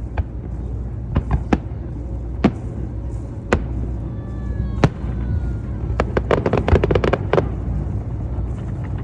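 Fireworks display: single sharp bangs every second or so, then a rapid string of reports about six to seven and a half seconds in, over a steady low rumble.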